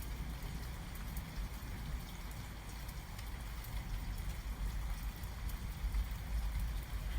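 Steady rain falling during a thunderstorm, with a constant low rumble underneath and no distinct thunderclap.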